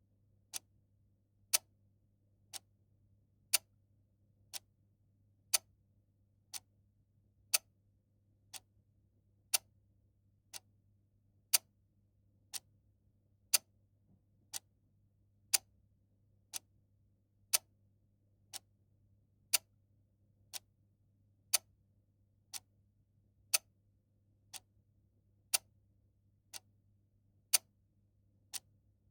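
A clock ticking at about one tick a second, with the ticks alternating louder and softer in a steady tick-tock.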